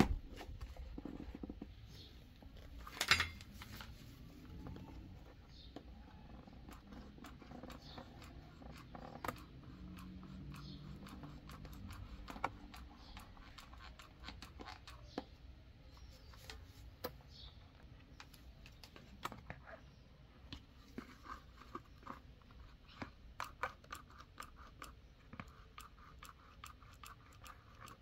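Handling noise from an aerosol can, a plastic bowl and a hot glue gun being worked by hand: scattered light clicks and scrapes, with a sharper knock about three seconds in and quicker clicking in the second half.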